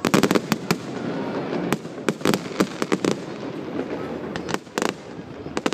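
Aerial fireworks display: a rapid volley of sharp shell bangs in the first second, then scattered bangs at uneven intervals, with another cluster near the end.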